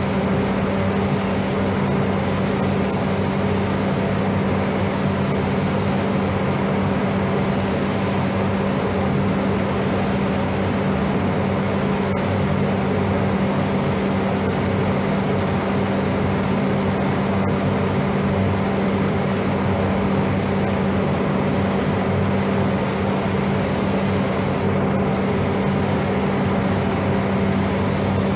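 Paint spray booth in use: a steady rush of air from the booth's ventilation fans and a compressed-air spray gun spraying paint, over a constant low hum. The high hiss dips briefly near the end.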